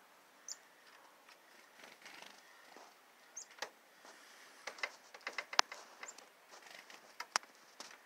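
A few faint, short, high bird chirps, and a scattered run of sharp clicks and taps through the second half.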